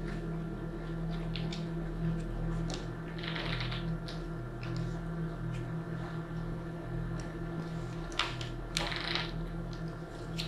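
Steady electrical hum from the recording, with scattered light clicks and two short hissy sounds, about three and nine seconds in.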